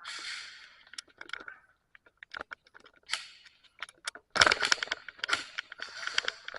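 Sharp clicks and snaps mixed with short bursts of rustling, with a dense run of rapid clicks about four seconds in.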